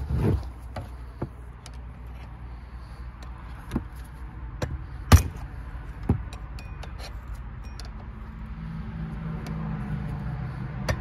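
Hammer striking a screwdriver set against a Husqvarna Rancher chainsaw's clutch to knock it loose: a few sharp metallic taps at irregular intervals, the loudest about five seconds in. A low steady hum builds over the last few seconds.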